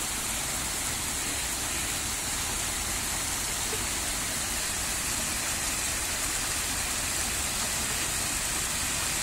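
Storm runoff rushing down a flight of concrete steps in a shallow cascade, a steady even hiss of water.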